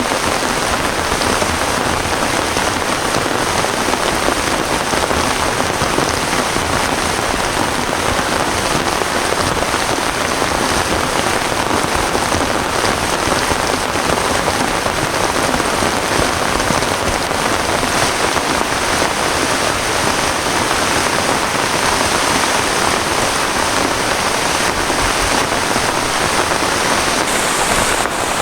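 Heavy rain falling steadily, a dense unbroken hiss of drops.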